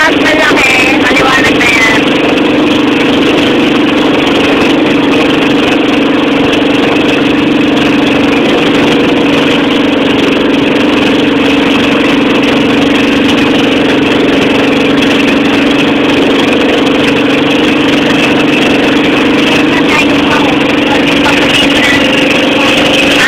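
Engine of a motorized outrigger boat running steadily under way, a loud even drone that does not change pitch.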